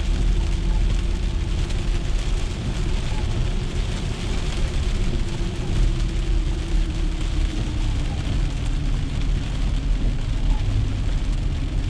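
Steady cabin noise of a car driving in heavy rain: low road and engine rumble with a steady hum, rain on the windshield and roof, and tyres hissing on the wet road.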